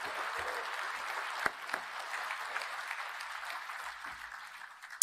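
Audience applauding steadily in a large banquet hall, the clapping thinning slightly near the end.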